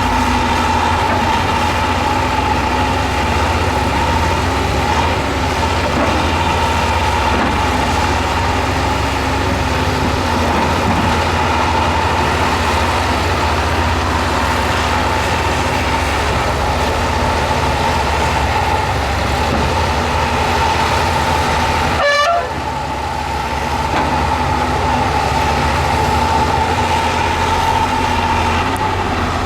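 Heavy earthmoving machinery running steadily: a diesel engine hum with a constant high whine over it. It breaks off abruptly about two-thirds of the way through and then carries on.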